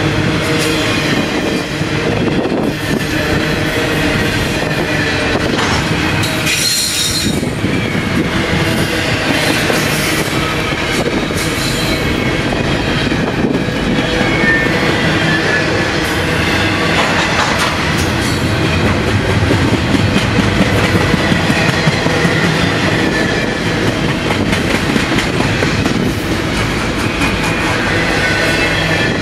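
Double-stack intermodal container well cars of a long freight train rolling past close by: a steady loud rumble and clatter of steel wheels on the rails, with thin high wheel squeal coming and going over it.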